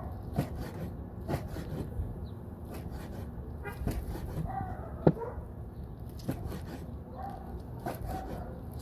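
Cleaver chopping cooked goat skin on a plastic cutting board: knocks at about one chop a second, the loudest about five seconds in.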